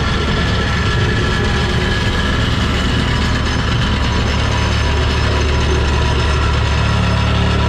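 Volvo 235EL excavator's diesel engine running steadily, with thin hydraulic whines over a strong low drone. The engine note steps up slightly near the end.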